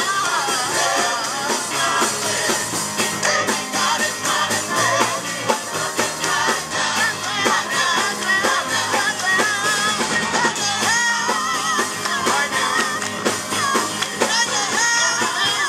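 Gospel choir singing live with a band: a lead singer on a microphone and choir voices over a drum kit.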